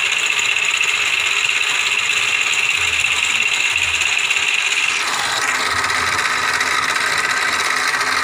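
Homemade mini lathe, driven by a used sewing-machine motor, running and spinning a wooden dowel in its three-jaw chuck, with no tool cutting: a steady whirring hum. Its tone changes about five seconds in.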